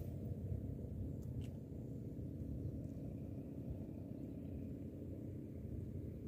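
Steady low rumbling noise without a clear pitch, with a couple of faint ticks about a second and a half in.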